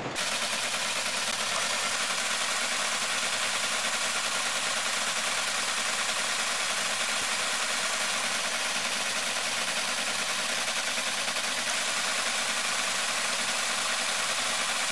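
Metal lathe running while its cutting tool turns a solid PVC wheel blank, peeling off chips: a steady, even cutting noise over a faint steady machine tone.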